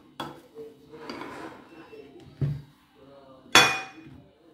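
Kitchen utensils knocking and clinking against dishes, with a little scraping between the knocks. About three and a half seconds in comes the loudest sound: a sharp clink with a short ring as a utensil is set down on a ceramic plate.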